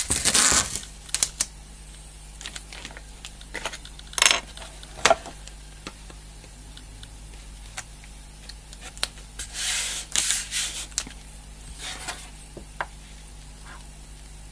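Brown paper tape pulled off its roll and smoothed down, then cardboard panels handled on a table: papery rustles and scrapes, loudest right at the start and again about ten seconds in, with a few sharp taps in between.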